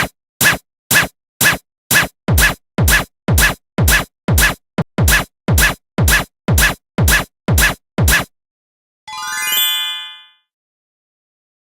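Japanese railroad crossing alarm clanging about twice a second, then stopping after about eight seconds. About a second later comes a brief run of bright chime-like tones.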